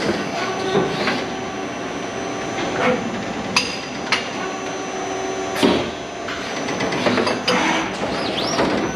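Takamaz XW130 twin-spindle CNC lathe running its automatic cycle, its gantry loader moving down to a spindle and back up. Sharp mechanical clicks and clunks, about three of them clear and several lighter, sound over a steady machine hum, with a short rising-and-falling whine near the end.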